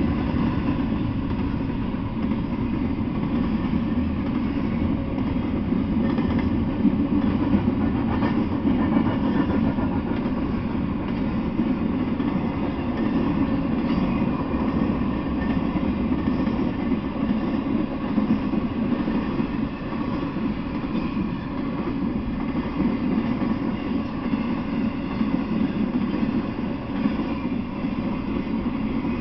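Intermodal freight train cars carrying containers and trailers rolling past steadily: a continuous low rumble of wheels on the rails.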